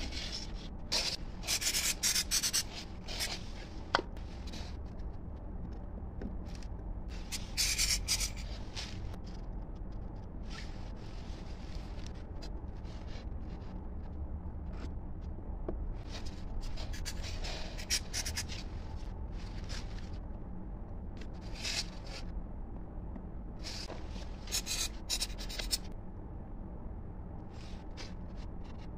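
A bare hand rubbing and smoothing the surface of freshly poured wet cement in a foam mould, in several short bursts of rubbing a second or two long. A steady low hum runs underneath, and there is one sharp click.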